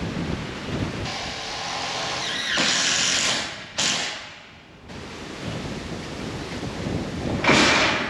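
Gusty wind buffeting the microphone, with loud rushing gusts about three seconds in and again near the end.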